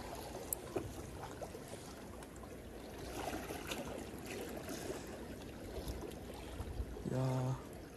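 Sea water lapping and gurgling among concrete tetrapods at the water's edge, with a few faint clicks. Near the end a man makes a short low vocal sound.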